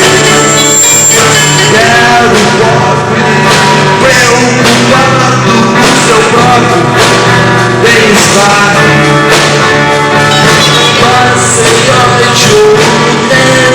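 A rock band playing live, with drums, bass and guitar and a voice singing over them.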